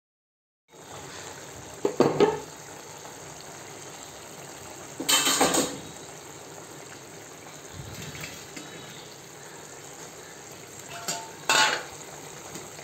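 Goat spleen frying in gravy in a metal pan with a steady sizzle, starting after a short silence. A metal spatula scrapes and clanks against the pan three times, about two, five and eleven seconds in.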